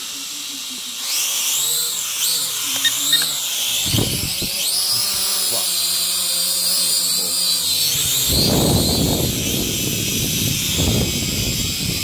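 Syma X5HW quadcopter's small electric motors and propellers whining at close range, the pitch rising and falling with the throttle, with a sharp knock about four seconds in. From about eight seconds the propellers' downdraft rushes over the microphone as the drone is held close.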